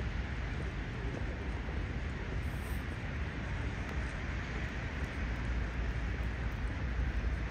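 Steady city street background noise: an even hiss over a low rumble, with no single event standing out.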